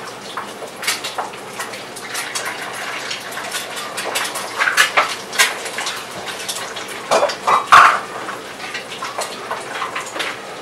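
Two cats wrestling on carpet: irregular scuffling, scratching and clicking throughout, with a few short louder sounds, the loudest about three-quarters of the way through.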